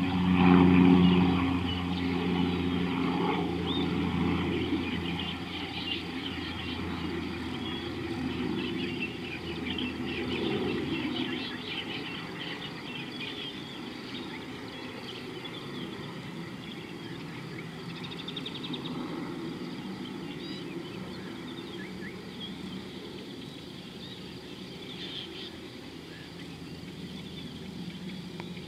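A distant engine hum, loudest about a second in, fading away over the first dozen seconds, while birds and insects chirp faintly throughout.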